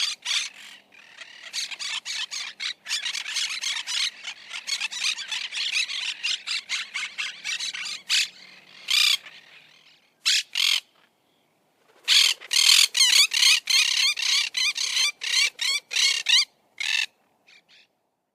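Monk parakeet giving a fast run of short, harsh calls, several a second. The calls break off briefly about ten seconds in, start again, and stop near the end.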